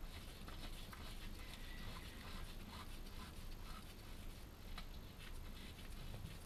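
Faint light ticks and handling noise as a filler plug is threaded back into a freshly filled Land Rover axle or transfer box by hand.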